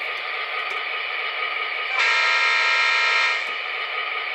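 The onboard sound system of an MTH HO-scale GP35 model locomotive plays a steady diesel engine idle. About two seconds in, a single horn blast lasting about a second and a half sounds over it, reproduced through the model's small speaker.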